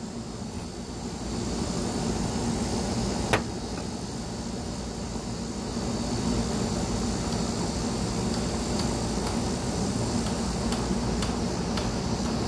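Steady low mechanical hum with a haze of noise, a little louder after about a second, and one sharp click about three and a half seconds in.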